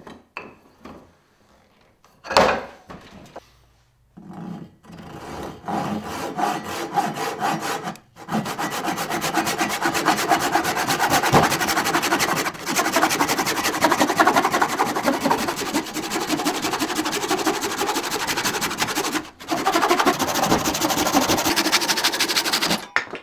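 Suizan folding ryoba Japanese pull saw crosscutting a block of tuart, a very hard hardwood. A few short starting strokes lead into a fast, even rhythm of cutting strokes, with a brief pause about three-quarters of the way through. A knock comes near the start.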